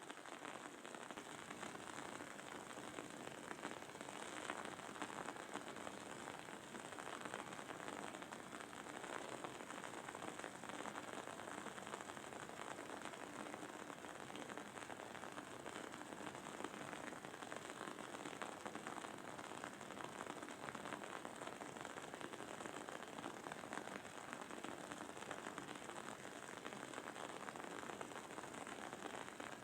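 Wooden candle wick burning with a faint, steady crackle: a dense run of tiny pops and sizzles.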